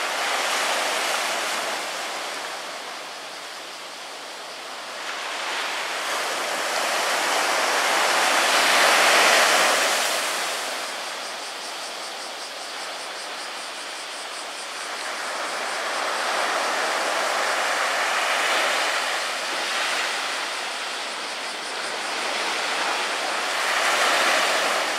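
Sea surf breaking and washing up a sand beach among rocks, in slow swells that rise and fall, loudest about nine seconds in and again near the end.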